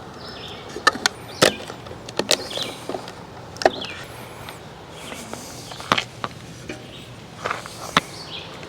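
A string of irregular sharp clicks and knocks, about nine in all, spaced unevenly over faint steady background noise.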